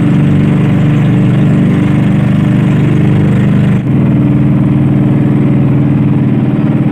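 Outrigger boat's engine running steadily and loudly, a constant low drone as the boat cruises.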